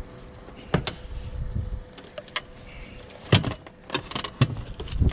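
Sharp knocks and clatter from handling gear and a caught blue catfish in a fishing boat, the loudest knock about three seconds in, with low thuds among them. A faint steady hum runs underneath.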